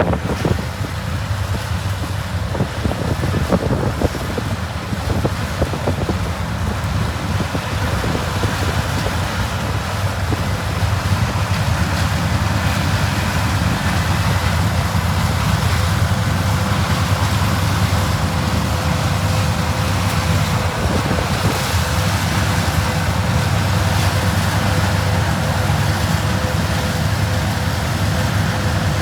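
Vintage harvest machinery running steadily in the field, a low continuous engine drone with a faint steady whine over it.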